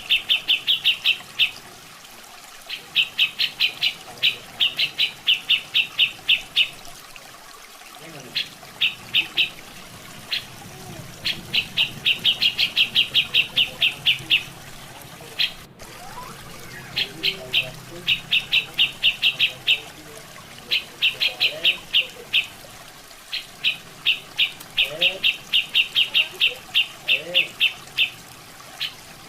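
Grey-cheeked bulbul (cucak jenggot) calling in fast runs of short, high repeated notes, broken by brief pauses, over a steady background of running water.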